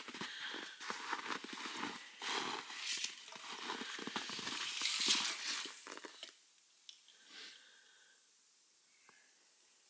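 Irregular crunching and rustling with small knocks as a person shifts in snow and handles a wooden board at a saw stand. After about six seconds it drops to near quiet, with only a few faint sounds.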